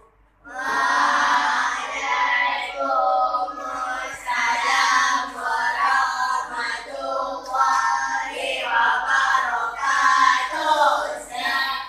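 Children singing a song, starting about half a second in, with held notes that rise and fall in pitch.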